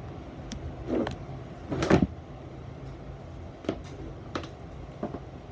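A finger poking and pressing into a lump of thick slime, making a few scattered squelches and sticky pops, the loudest about two seconds in.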